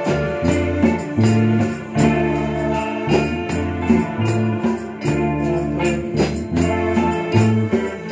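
A live band playing, with electric guitars over a bass line that changes note every second or so, and sharp percussion hits throughout.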